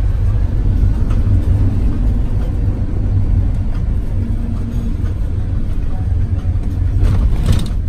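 Steady low road and engine rumble inside a moving tour bus, with a brief rushing sound about seven seconds in.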